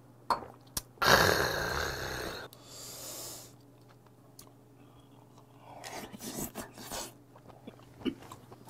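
A man lets out a loud, breathy exhale just after swallowing a mouthful of makgeolli, about a second in, followed by a softer breath out. Later come light clicks of chopsticks and a spoon against dishes, with chewing.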